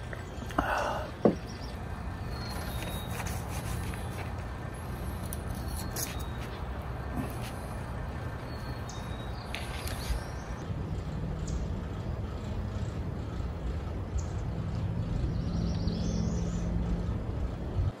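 A steady low rumble runs throughout, with a few sharp clinks of a fork and dishes on a wooden picnic table, the loudest about a second in.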